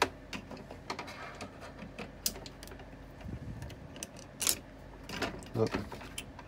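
Scattered clicks and knocks of hard plastic parts of a Trotec dehumidifier housing being handled and worked loose during disassembly, irregular and uneven, with one louder knock about four and a half seconds in.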